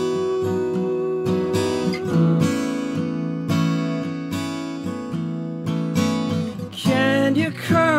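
Acoustic guitar strumming sustained chords in a steady rhythm, changing chord about two seconds in. Near the end a man's voice comes in singing over it.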